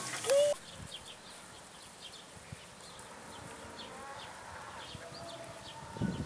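A small child's short rising call at the start, then faint repeated bird chirps and a few faint, drawn-out sheep bleats.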